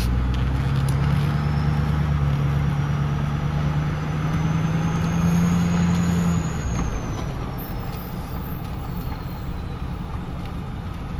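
Vehicle interior while driving slowly on a dirt road: steady engine hum with tyre and road noise. The hum eases off about six and a half seconds in as the vehicle slows.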